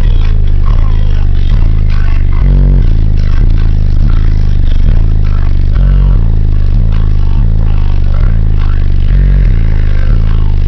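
Car subwoofers playing a bass-heavy song very loud, deep bass notes changing every second or so, with a ragged, rattling noise above them as the bass overloads the car and the recording.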